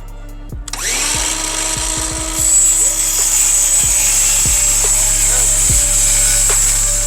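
Electric power saw spinning up about a second in and running steadily through a cut, growing louder and shriller about two and a half seconds in. Hip-hop music plays underneath.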